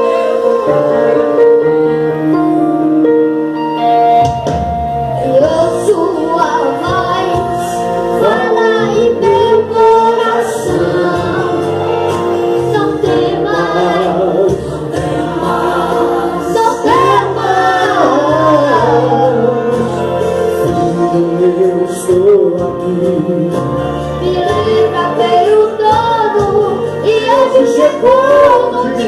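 Live gospel worship music: voices singing with sliding, ornamented pitch over held instrumental chords, with a bass line coming in about four seconds in.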